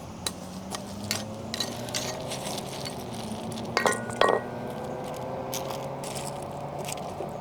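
Scattered light clicks and clinks of garden soil and small stones being handled, with two louder knocks about four seconds in, over a steady low hum.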